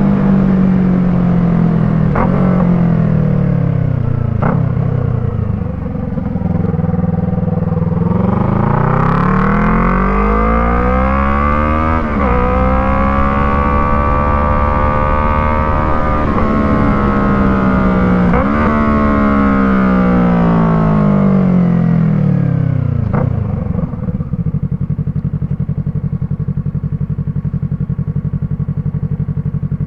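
Yamaha MT-03's parallel-twin engine breathing through an Arashi aftermarket exhaust with the dB killer fitted. The revs fall at first, then the bike pulls up through the gears, with the pitch dropping and climbing again at each shift about three times. It then rolls off and settles to a steady low idle near the end.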